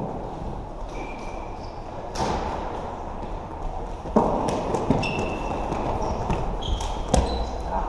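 Floorball play: several sharp clacks of sticks against the plastic ball, the loudest about four seconds in and near the end, with a few short sneaker squeaks on the court floor over a steady hall background.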